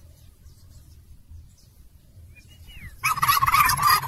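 Domestic tom turkey gobbling once, loudly, about three seconds in after a quiet stretch.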